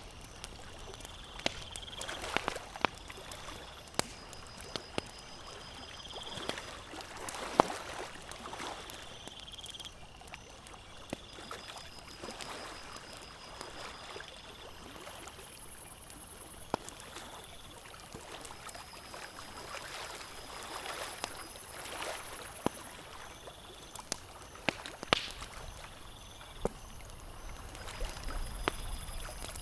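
Campfire crackling with sharp pops at irregular intervals, over the steady wash of lake water lapping. Faint high-pitched tones come and go in the background.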